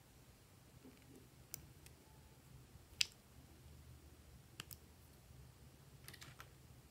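Sparse sharp clicks of small hard plastic: a cupcake-shaped toy container being pulled apart and its hinged lid flipped open. The loudest click comes about three seconds in, with a quick little cluster near the end.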